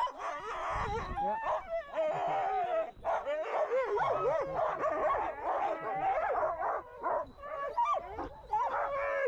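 A team of husky sled dogs howling, yipping and barking all at once in a dense, overlapping chorus: the excited din of sled dogs hitched up in harness and eager to run.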